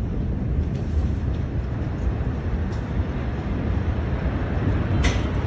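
Steady low rumble with heavy buffeting on a phone microphone while the dust cloud of a huge explosion rises. A single sharp click comes about five seconds in.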